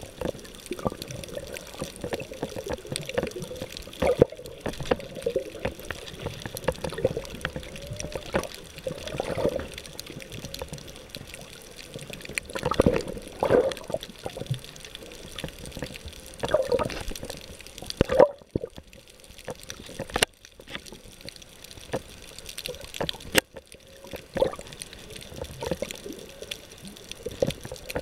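Underwater sound from a camera held below the surface on a coral reef: water swishing and gurgling around the housing in uneven swells, with many small clicks and crackles. The sound drops out briefly twice in the later part.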